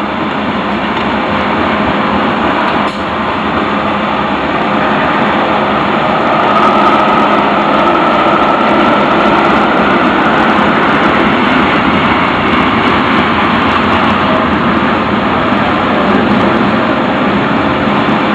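Loaded freight train of tank cars rolling past: a steady, loud rumble and hiss of steel wheels on the rails, with no let-up as car after car goes by.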